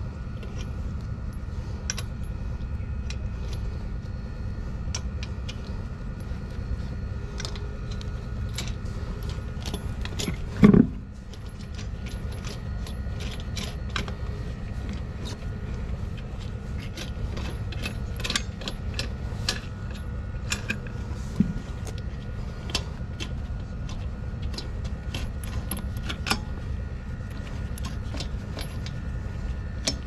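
Steel lug nuts clinking together in a gloved hand and clicking against the wheel as they are threaded by hand onto the studs of a steel spare wheel. There is one louder knock about a third of the way through.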